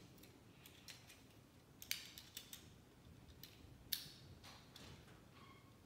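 Faint plastic clicks and snaps from a Transformers Cyberverse Warrior Class Windblade figure's joints and panels being twisted during transformation, the sharpest about two seconds in and again about four seconds in.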